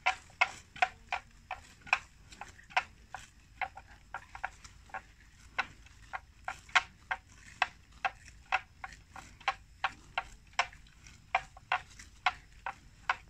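Water buffalo grazing: the crisp rip of grass being torn off by mouthfuls, again and again in an irregular run of about two or three sharp tugs a second.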